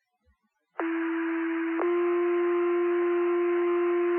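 Two-tone sequential paging tones over a fire dispatch radio channel: a steady tone for about a second, then a step to a second steady tone held for about three seconds, the alert that sets off the firefighters' pagers.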